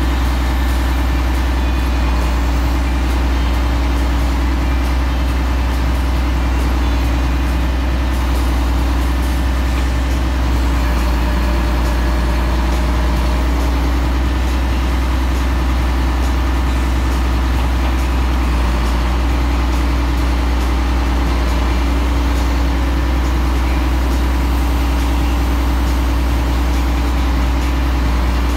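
Mack Superliner log truck's diesel engine running steadily through loud exhaust pipes: a deep, even drone that holds the same pace throughout.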